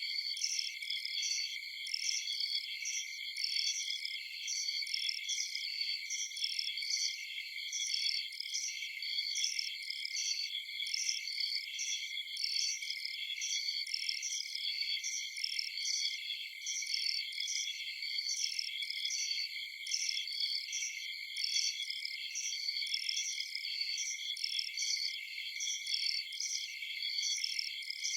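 A dense chorus of crickets chirping at night: steady high trilling with a regular pulsing chirp over it, unchanging throughout.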